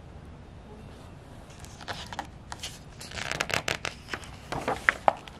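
Paper pages of a picture book rustling and crinkling as they are handled and turned, with a run of crisp clicks and rustles in the second half.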